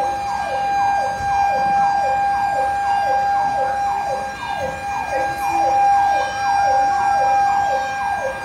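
Fire truck siren sounding a fast repeating falling yelp, about three sweeps a second, over a steady high tone held throughout.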